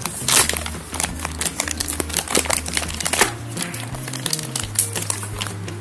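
Cloud slime crackling and crinkling in quick sharp clicks as it is handled and the paper clay is worked in, over background music with a steady bass line.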